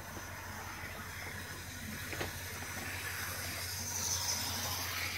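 HO scale model diesel locomotive running along the track past the microphone, a whirring, hissing run over a steady low hum that grows loudest as it goes by about four seconds in. A single sharp click comes about two seconds in.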